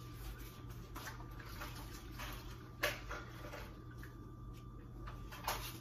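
A few light clicks and knocks of seasoning jars being handled and wiped down, one sharper knock about three seconds in, over a steady low hum.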